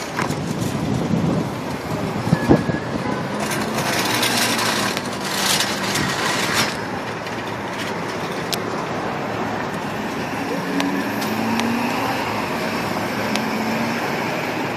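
City traffic noise as a police emergency-service truck drives slowly past, its engine running with a low drone that rises slightly as it comes close.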